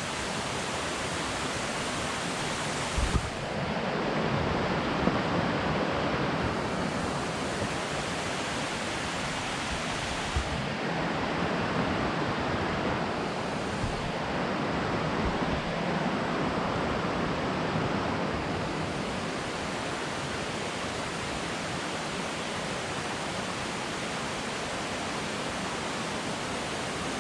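Steady rush of a shallow river flowing over rocks, an even hiss of moving water. A couple of short low thumps come about three and ten seconds in.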